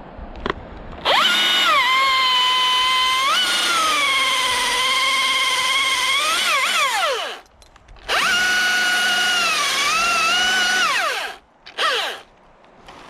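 Two-stroke chainsaw run up to full throttle and cutting twice, first for about six seconds, then for about three. Its pitch sags while the chain is in the wood and rises again before each let-off. A short rev follows near the end.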